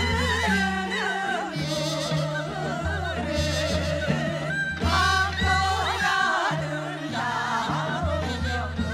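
Several women singing a Korean folk song (minyo) together with wavering vibrato, over an instrumental backing with a bass line that steps from note to note.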